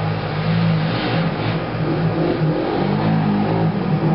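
ATV engine running under throttle, its pitch rising and falling, higher about three seconds in.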